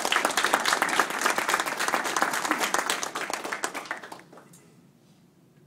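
A small audience applauding, with the clapping dying away about four seconds in.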